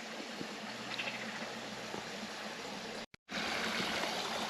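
A small woodland stream running and trickling steadily. The sound cuts out briefly about three seconds in, then comes back a little louder.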